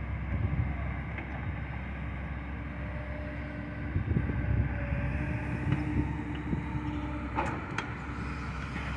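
Kobelco hydraulic excavator's diesel engine running as it works, a steady low rumble that grows louder about four seconds in, with a couple of sharp knocks near the end.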